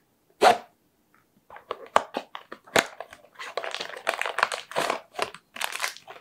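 Small cardboard blind box being torn open by hand: a short loud rip about half a second in, a few sharp clicks, then a run of dense crinkling as the flaps are pulled apart and the packaging inside is handled.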